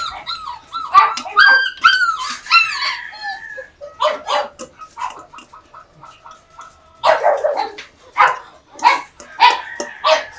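Dogs barking and yipping in many quick short calls, with high whining cries about a second or two in; the barking picks up again about seven seconds in.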